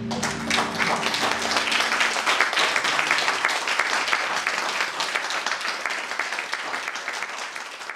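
Audience applauding, a dense, even patter of many hands clapping. A low held musical note dies away in the first two or three seconds.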